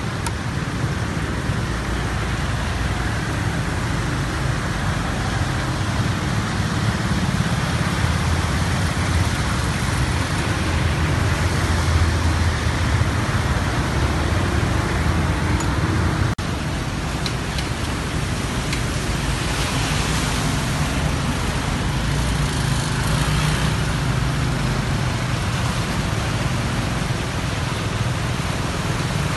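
Motorbikes and cars driving through a flooded street: engines running under a steady rushing of water and traffic noise, with a brief break about halfway through.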